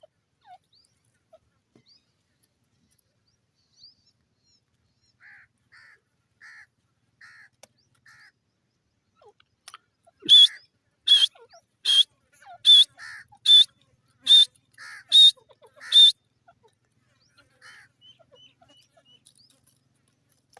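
Grey francolin calling. A few soft paired notes come first, then about halfway through a loud series of eight harsh calls roughly 0.8 s apart, trailing off into quieter notes.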